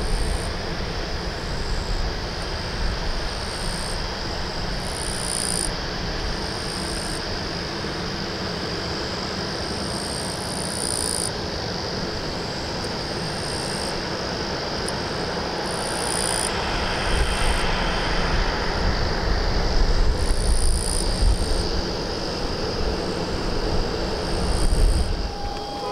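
Boeing 737-800's CFM56-7B jet engines running at taxi power as the airliner rolls to its stand, a steady rushing whine that swells a little over halfway through and again near the end. Short high chirps of insects repeat over it.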